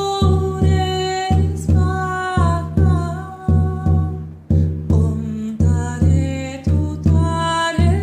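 Masayacu shamanic frame drum beaten in a steady rhythm of about two booming strokes a second, with a voice singing long held notes over it.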